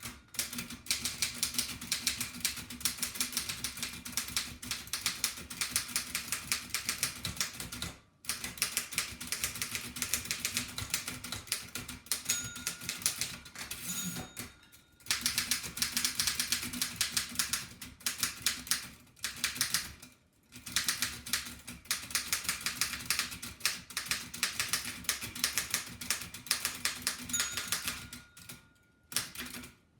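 1894 Densmore No. 1 typewriter being typed on fast, its keys and typebars clacking in quick runs. The runs break off briefly four times.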